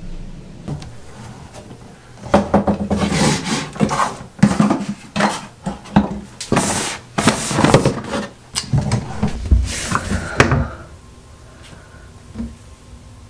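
Drawers and wooden cabinet doors being opened and shut and their contents rummaged through: a busy run of knocks, clatters and scrapes starting about two seconds in and stopping about eleven seconds in.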